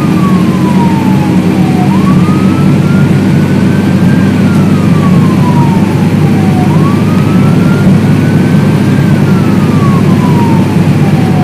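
Fire truck driving on an emergency run, heard from inside the cab: a loud, steady engine and road rumble, with the truck's siren in a slow wail behind it. The wail rises over about two seconds and falls over a little longer, repeating about every four and a half seconds.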